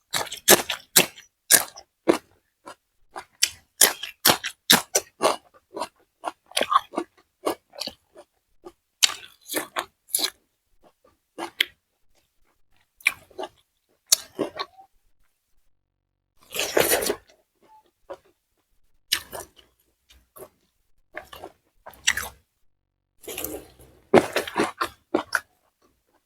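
Close-miked chewing and crunching of fried tofu and raw green bird's-eye chilies: irregular wet bites and crunches in quick runs with short pauses, and one longer noisy sound about seventeen seconds in.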